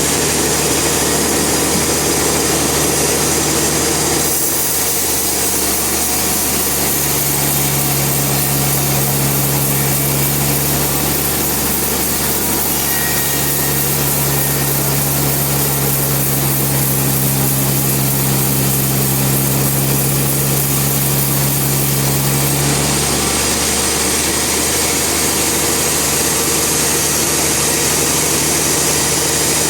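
Band sawmill running, its blade cutting through a log with steady dense noise. A few seconds in the sound changes, and a steady low hum holds for about fifteen seconds before dropping away near the end.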